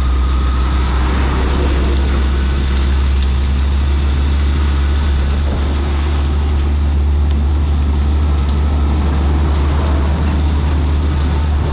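Steady vehicle engine drone mixed with road noise, holding at one level throughout.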